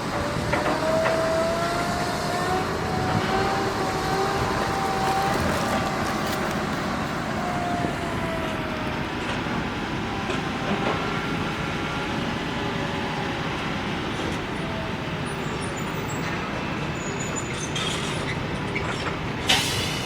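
Heavy earthmoving machinery running steadily, with a high metallic squeal that wavers in pitch during the first half and a single sharp clank near the end.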